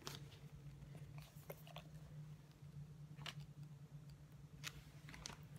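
Near silence with a steady low hum, broken by a few faint clicks and taps from a small plastic cosmetic tube being handled and opened in the fingers.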